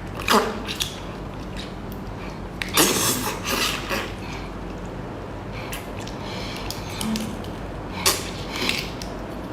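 Loud sucking and slurping at a tiger prawn's shell to draw the meat out, in several short bursts, the longest about three seconds in.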